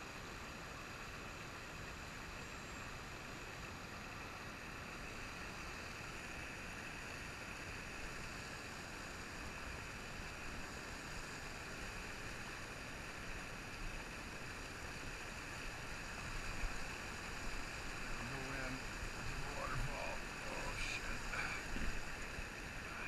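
Steady rushing of a trout stream's rapids, water pouring white over rock. It gets a little louder and less even in the last few seconds.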